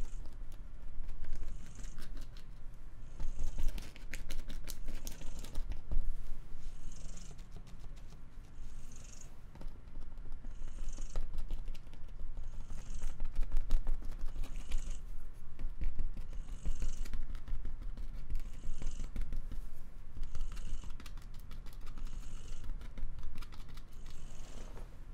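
Domestic cat purring close to the microphone: a steady low rumble with a soft breath about every two seconds. Scattered light taps and clicks run through it.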